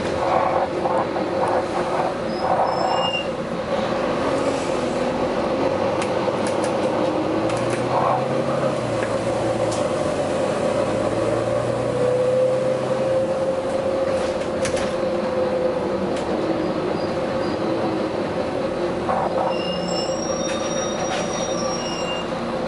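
Train running on rails with a steady rumble and hum, and brief high-pitched wheel squeals near the start and again near the end.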